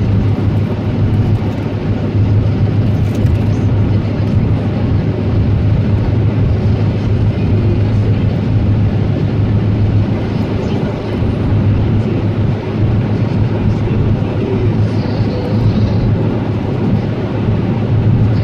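Steady road and engine noise heard inside a car's cabin while driving at speed on a dual carriageway, with a constant low hum underneath.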